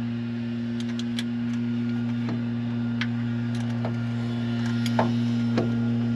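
A steady low mechanical hum, with scattered light clinks and taps of tools on metal.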